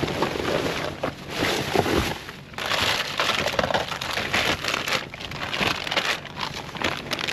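Plastic bags and cardboard rustling and crinkling in irregular bursts as gloved hands rummage through trash in a dumpster.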